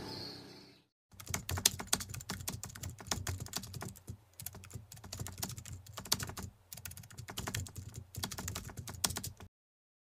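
Rapid runs of sharp light clicks and taps in uneven bursts, much like typing on a keyboard. They cut off abruptly near the end.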